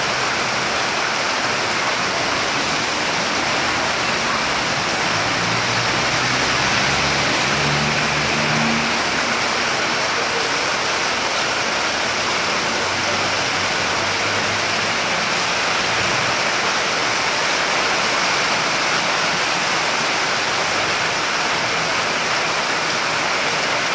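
Heavy downpour: a steady rush of rain pouring onto the street and the awning. A low engine hum from cars going by on the wet street comes in partway through.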